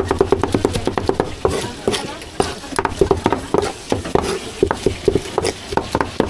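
Cleaver rapidly chopping braised meat on a wooden chopping board, several strokes a second, for rou jia mo filling.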